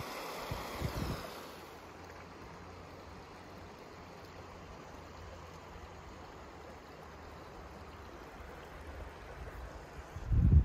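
Outdoor ambience: a soft, steady rush of water under wind on the microphone. There is low wind rumble about a second in, and a louder buffet of wind near the end.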